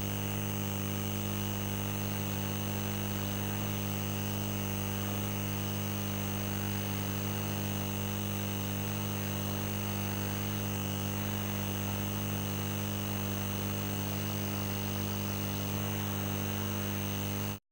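Steady electrical mains hum, a low buzz with a faint high whine over it, holding level throughout and then cutting off abruptly near the end.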